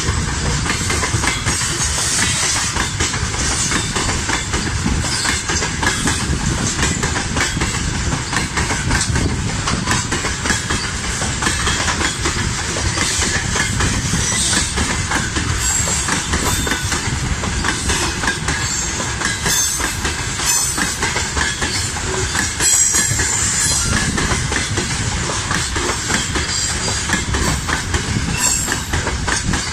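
A long freight train of open-top gondola wagons rolling past close by. Its wheels give a steady rumble and a clickety-clack over the rail joints.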